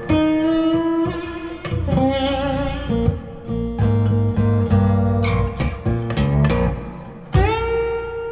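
Blues guitar solo with bent and sustained notes over a low accompaniment, ending on a struck note that is held and fades out. It is played back through a Mark Audio Alpair full-range driver in a back-loaded horn loudspeaker.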